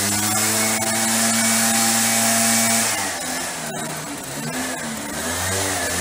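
Echo PB-500T backpack blower's two-stroke engine running at a steady high throttle, blowing hard, then dropping back about three seconds in and revving up again near the end. The blower now runs after its no-start fault was repaired.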